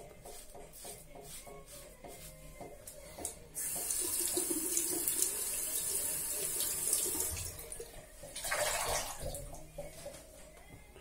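Short strokes of a Mühle Rocca safety razor scraping lathered stubble, then a tap running for about four seconds, plausibly to rinse the razor, with a second shorter splash of water near the end.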